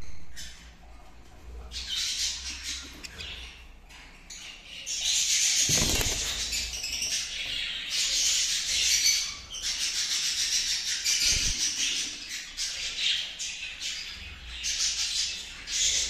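Caged budgerigars chattering and warbling in scratchy high spells, loudest in the middle, with a couple of dull thumps about six and eleven seconds in.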